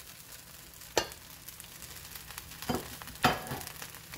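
Rice frying dry in a pot with a faint, steady sizzle, the liquid cooked off so the grains have started to fry. Three sharp knocks sound over it, one about a second in and two close together past the middle.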